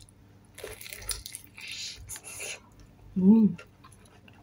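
Close-up mouth sounds of someone chewing crispy fried chicken, with wet, crackly noises over the first couple of seconds. About three seconds in comes a short hummed "mmm" of enjoyment, the loudest sound.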